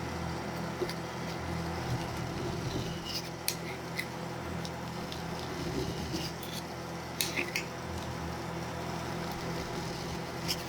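Rolled ice cream being worked on the steel cold plate of an ice cream roll machine: scattered light clicks and scrapes of metal spatulas, with a cluster about three seconds in and another about seven seconds in, over the machine's steady low refrigeration hum.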